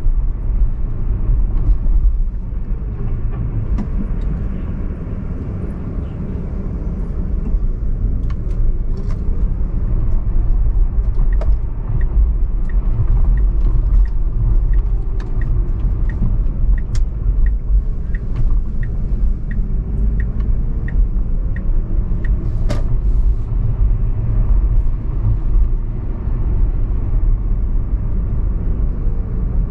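Car driving on city streets, a steady low rumble of road and engine noise. In the middle comes a run of short, even ticks about twice a second that lasts some ten seconds.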